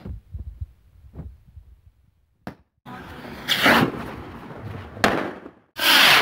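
Fireworks going off: a rushing hiss of rockets from about three seconds in, a sharp crack about five seconds in, and a loud burst at the end.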